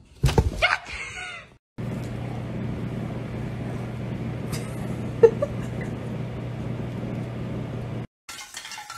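A short cry near the start, then a domestic cat purring steadily in a low, even rumble for about six seconds.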